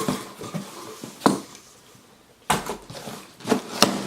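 Product packaging being handled, a few sharp knocks and rustles as the box and its contents are moved.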